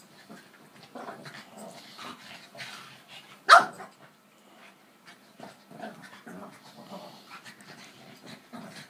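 A black Labrador and a Boston terrier play-fighting, with scattered short snuffles and scuffling. About three and a half seconds in comes one sharp, loud bark.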